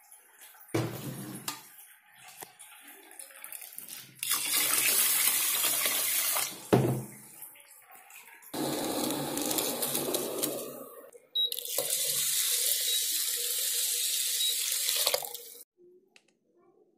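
Water running and being poured into an aluminium pot of rice, in three stretches of a few seconds each, with a sharp knock near the middle, as the rice is washed and covered to soak.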